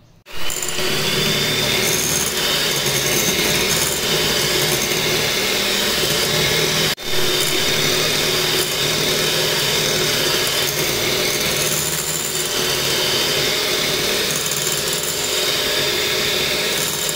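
Deuron electric hand mixer running at a steady speed, its twin wire beaters whisking eggs and sugar in a glass bowl until the batter doubles in volume. It starts abruptly just after the opening and breaks off for an instant about seven seconds in.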